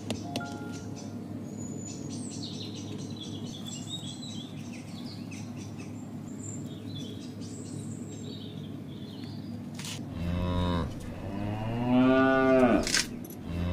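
Faint birds chirping over a steady low hum, then a cow moos twice near the end, the second moo rising and falling in pitch.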